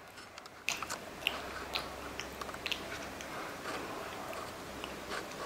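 A pet chewing a biscuit: irregular crisp crunches, a dozen or so, starting about a second in.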